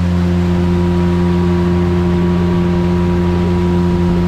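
Speedboat engine running at a steady speed, a constant drone that holds one pitch throughout.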